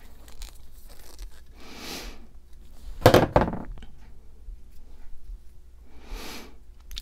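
Hands working a short piece of hookup wire for a guitar's ground wire: a soft rustle about two seconds in, a louder, brief crunching scrape about three seconds in, and another soft rustle near the end.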